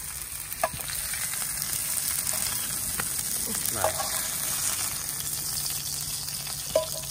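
Whole fish frying in hot oil in a pan, a steady sizzle. A few sharp clicks of a knife against the pan come as the cooked fish are lifted out.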